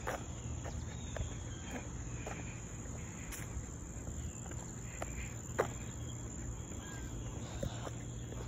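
Steady, high-pitched chorus of insects, with scattered light footsteps on asphalt.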